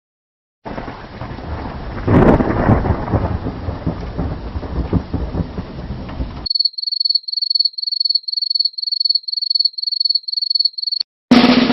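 Thunderstorm sound effect: steady rain hiss with a loud thunder clap about two seconds in, cutting off abruptly. Then a cricket-chirping effect, a string of short high chirps about two and a half a second, the stock 'awkward silence' crickets. Near the end, after a click, a loud new effect begins, which runs on as a drum roll.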